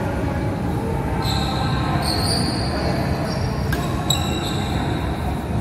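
Sneakers squeaking on a badminton court as doubles players move about, several short high squeals, with a couple of sharp racket hits on the shuttlecock about three and a half to four seconds in. Under it all runs a steady hum of the hall.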